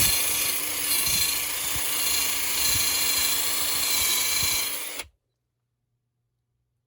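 A handheld electric power tool running steadily with a motor hum and a dense high hiss, stopping abruptly about five seconds in.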